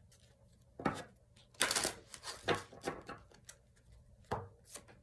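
A deck of oracle cards being handled and shuffled: several sharp taps and a short rustle of the cards.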